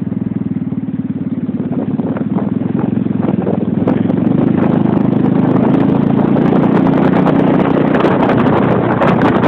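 Motorcycle engine running at steady revs, growing louder over the first few seconds, with rough wind noise on the microphone building up from about two seconds in.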